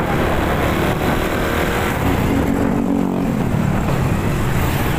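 Steady engine and road noise of riding in motor traffic, with an engine note that swells and fades near the middle.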